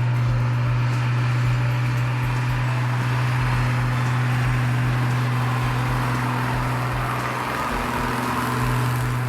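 A heavy truck's engine running with a steady low drone and an uneven low rumble beneath it.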